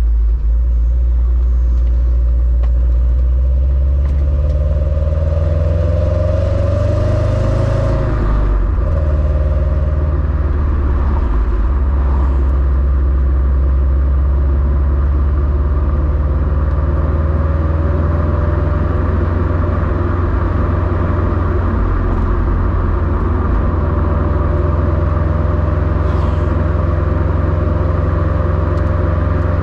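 Stock exhaust of a 2021 Subaru WRX STI, its turbocharged 2.5-litre boxer four rumbling steadily while the car is driven, with road noise underneath. The engine note climbs, then drops suddenly about eight seconds in before settling back into the rumble.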